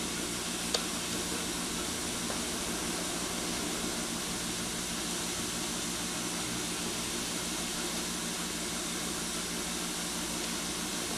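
Soft, steady sizzle of celery, carrots and leek sweating in butter in a skillet over medium-low heat, over a low steady hum. One faint click about a second in.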